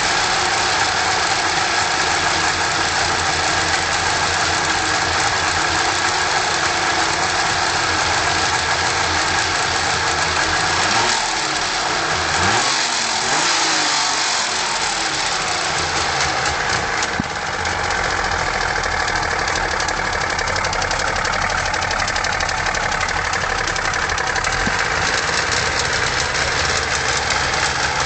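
Wartburg 353's hot three-cylinder two-stroke engine idling with a distinct clatter from the middle cylinder. About halfway through the engine is briefly revved up and drops back to idle.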